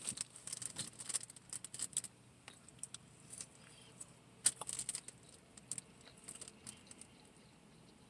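Close-miked eating sounds: wet mouth clicks and chewing from a bite of pancake sandwich, a dense run of crisp clicks for about two seconds, then only scattered clicks, one louder about halfway.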